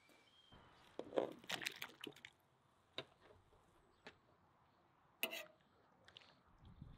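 Scattered clinks and knocks of utensils, then a utensil stirring shredded cabbage in broth in a cauldron, with liquid squishing and a short sharp sound just after five seconds.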